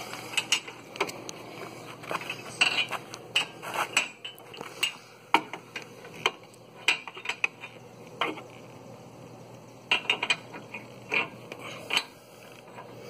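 Repeated irregular metallic clinks and knocks as a steel hitch pin is worked through the holes of a truck's receiver hitch and ball-mount shank.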